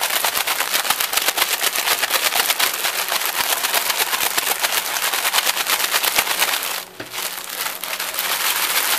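Crushed dry ramyun noodle pieces rattling hard inside a plastic snack bag as it is shaken vigorously to coat them in seasoning powder, with the packaging crinkling in a fast, dense clatter. The shaking stops briefly about seven seconds in, then starts again.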